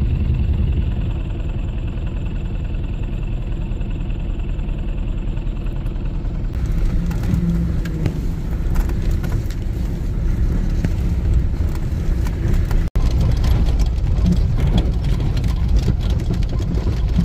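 A vehicle engine running with a steady low rumble, as heard while driving, with a brief dropout near the end.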